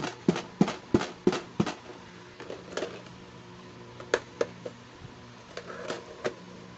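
Fingers tapping on a hollow pink plastic toy makeup case, six sharp taps at about three a second, followed by a few scattered plastic clicks as the case is handled and its clasps worked open.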